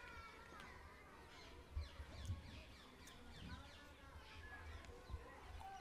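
Faint outdoor birdsong: many birds chirping with short calls that rise and fall, over a low rumble of wind on the microphone, with a couple of low bumps about two seconds in.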